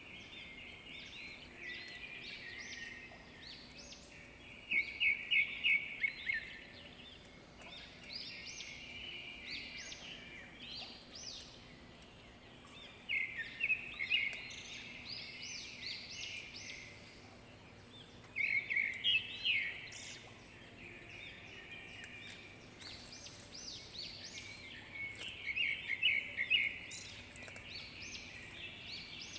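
Songbirds chirping and singing throughout, with louder rapid trilling phrases that come back every five to seven seconds.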